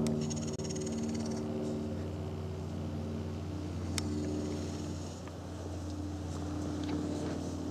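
A steady low engine-like drone holding several even tones, with a single sharp click about four seconds in.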